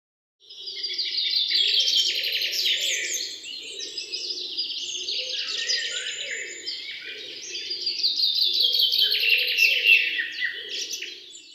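A chorus of birds chirping and singing continuously in dense, overlapping trills, with a fainter, lower sound running underneath; it starts about half a second in and fades out near the end.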